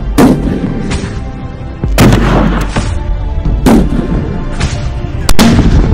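Sayyad-2 (AM-50) .50 calibre sniper rifle firing: four heavy shots about 1.7 seconds apart, each with a booming tail. Background music with a steady beat plays underneath.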